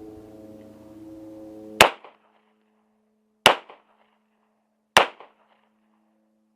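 Three gunshots from a firearm at a shooting range, spaced about a second and a half apart.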